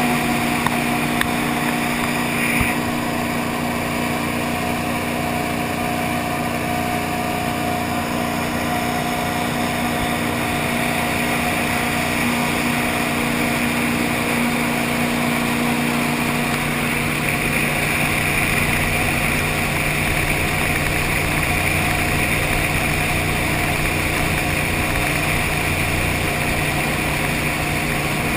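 V8 engine of a tunnel-hull jet boat running steadily under way, with a constant rushing noise. Its steady engine note becomes less distinct about halfway through, leaving mostly the rush.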